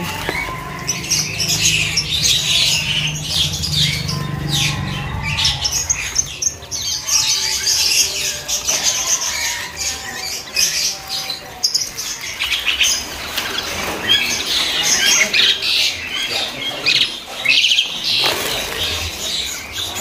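A cage full of zebra finches, many birds chirping over one another in quick, overlapping calls, with the brief rustle of wings as they flutter between perches.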